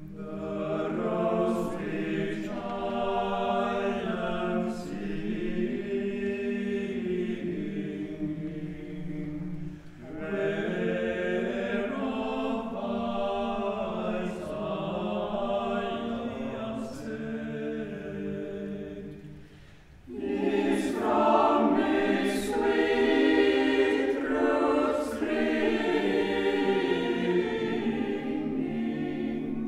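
Mixed choir singing in a church, in three long phrases of about ten seconds each with a short breath between them; the third phrase is the loudest.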